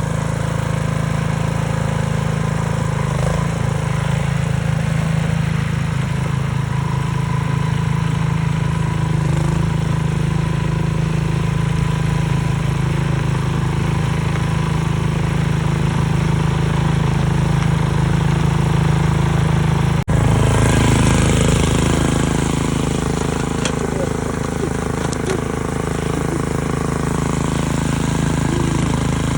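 Snow blower's small petrol engine running steadily at working speed. A sharp click comes about twenty seconds in, after which a hiss in the sound grows.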